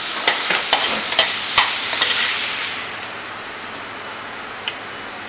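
A Thai basil beef stir-fry sizzling in a hot pan, with several sharp clinks of a metal utensil against the pan in the first two seconds. The sizzle dies away after about three seconds.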